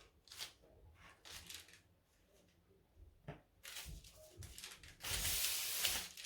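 Hands handling and cutting out sablé cookie dough: soft rubbing and tapping noises, with a louder scraping rustle lasting about a second near the end.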